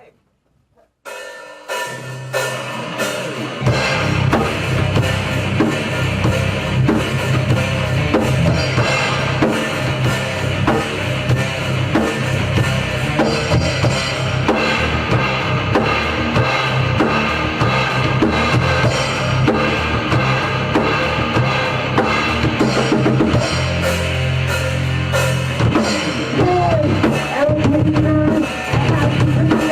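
Rock band playing live in rehearsal, the drum kit out front with bass drum and cymbals. The music starts about a second in and fills out with a heavy low bass line from about three and a half seconds.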